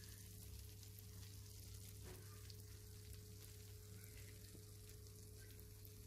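Near silence: a faint steady low hum with a thin background hiss.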